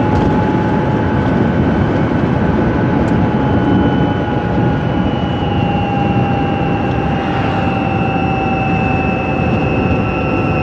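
Microlino electric microcar driving at about 70 km/h, heard from inside its cabin: steady road and wind noise under a high drivetrain whine that sinks slightly in pitch as the car eases off.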